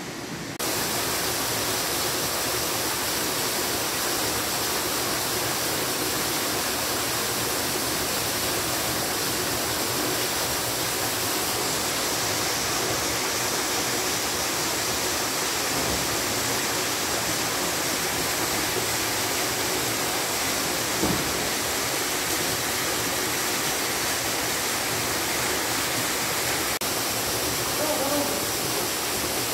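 Steady rush of a small waterfall and stream tumbling over rock. It starts abruptly about half a second in.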